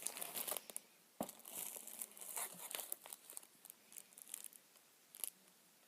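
Plastic snack wrappers crinkling and rustling in irregular bursts as packets are handled, with a sharp click about a second in.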